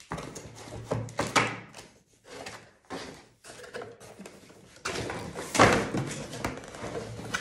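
Unboxing handling noise: a metal detector's parts and packaging being handled on a surface, with a few knocks and clicks. The loudest knock comes about five and a half seconds in.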